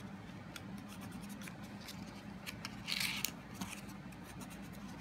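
Folded greeting-card paper being creased and pressed into a small box by hand: scattered faint ticks and rustles, with a short louder crinkle about three seconds in.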